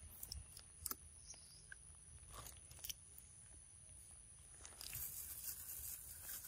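Monkey eating a ripe mango: a few faint, wet bites and chewing clicks. A soft hiss comes up near the end.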